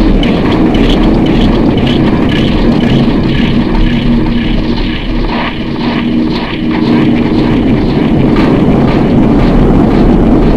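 A loud, continuous droning rumble with a steady low hum running through it, easing slightly about halfway through.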